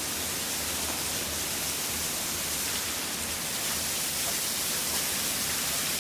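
Heavy rain pouring down in a thunderstorm, a dense, steady hiss with a low rumble underneath.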